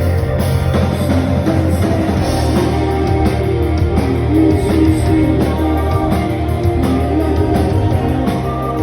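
Live band playing rock music, a melodic guitar line moving over sustained bass notes.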